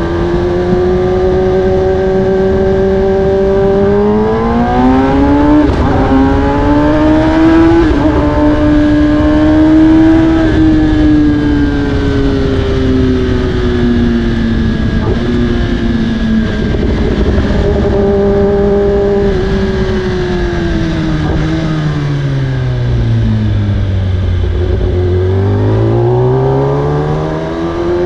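Kawasaki ZX-10R's inline-four engine breathing through an Akrapovic carbon exhaust while being ridden. The engine note climbs about four seconds in, holds, then slowly sinks. Near the end it drops low and climbs again.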